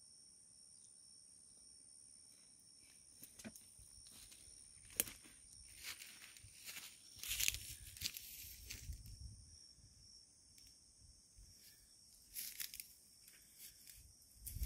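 Steady high-pitched chorus of insects, joined from about three seconds in by scattered rustles and clicks, the sharpest click about five seconds in and a louder patch of rustling with a low rumble a little later.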